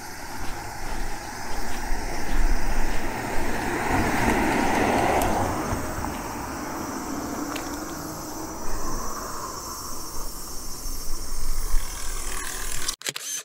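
A motor vehicle passing by, its noise swelling to a peak about four to five seconds in and then fading with a slowly falling hum. The sound cuts off abruptly near the end.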